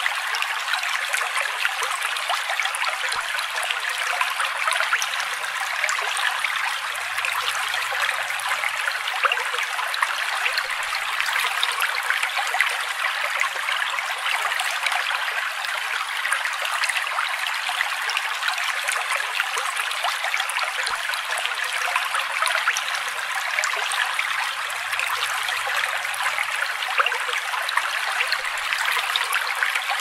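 A small mountain creek trickling and splashing over rocks in a steady, unbroken rush of water.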